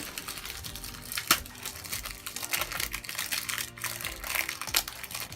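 Plastic packaging crinkling and rustling in irregular bursts as the cube is unwrapped, with background music underneath.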